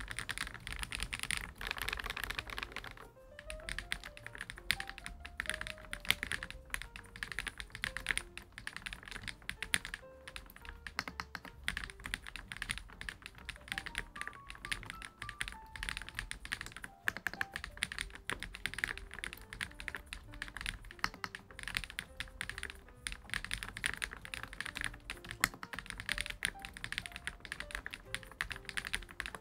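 Fast continuous typing on a GLITTER65 R2 gasket-mount mechanical keyboard, dense keystroke clacks with a brief pause about three seconds in. Soft background music with a simple melody plays underneath.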